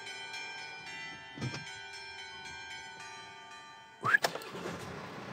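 Bells ringing, a run of struck notes with long ringing tails. About four seconds in, a sudden loud sound with a rising sweep breaks in and is followed by a steady hiss.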